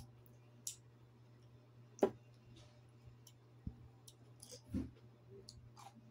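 Scattered soft clicks and small wet pops of sea grapes (lato) being eaten by hand: the beaded seaweed picked apart with the fingers and popping as it is chewed. The sharpest click comes about two seconds in, over a faint steady low hum.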